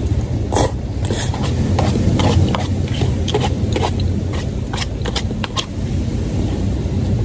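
Close-miked eating of spaghetti: slurping the noodles, then wet chewing with many short sharp mouth clicks. A steady low hum runs underneath.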